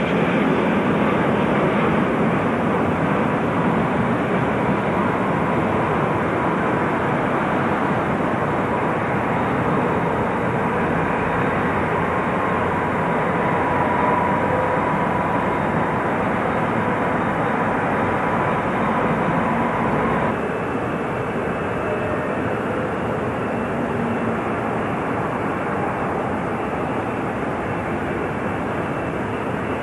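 Jet airliner engines running, a steady dense noise with a faint high whine over it; about twenty seconds in the sound changes abruptly, the whine ending and the level dropping a little.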